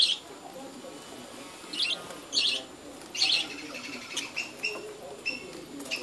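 Budgerigars chirping in a flock: a handful of short, high calls, the strongest around two to three seconds in, followed by quicker, lighter chirps.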